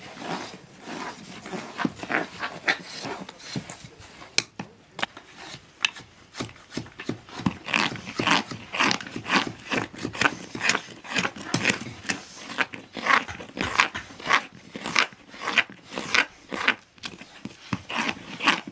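Wooden mallet striking a carving blade as it cuts into a wooden spoon blank, roughing out the spoon: sharp knocks about twice a second, with the rasp of the blade through the wood.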